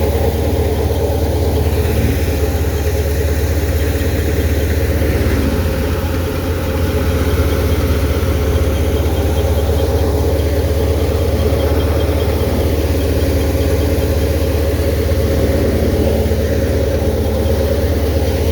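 Tractor engine running steadily, driving a wheat thresher machine, a continuous loud mechanical drone.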